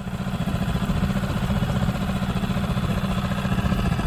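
Small Yamaha outboard motor running steadily at low speed, with a fast, even firing pulse.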